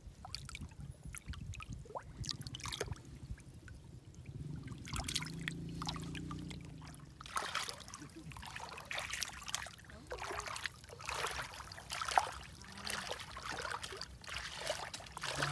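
Hands splashing and sloshing through shallow muddy water while groping in the mud for fish: a string of short splashes and drips, busier in the second half.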